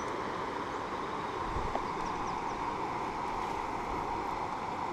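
Shallow river running over a stony bed and riffles: a steady rushing hiss with no changes.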